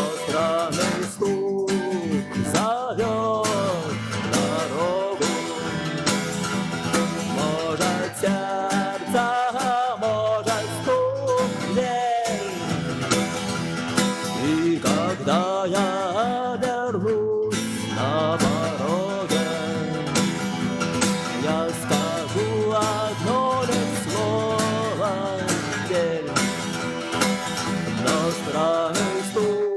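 Instrumental passage of a song cover: a guitar strummed steadily, with a bending, wavering melody line over it.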